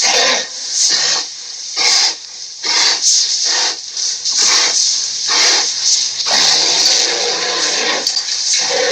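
Dinosaur sound effect for an Acrocanthosaurus: a run of short breathy hisses, about two a second, then one longer drawn-out hiss near the end.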